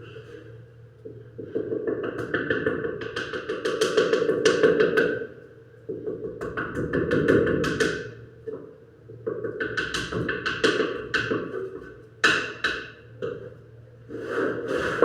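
Runs of rapid clattering taps on wood, each lasting a few seconds with short pauses between, from hand work on a wooden panel during carpentry finishing.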